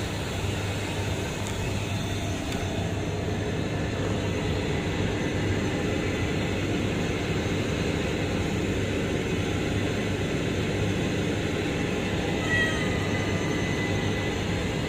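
Steady drone of plant machinery with a low hum, and one short, high-pitched cat meow late on.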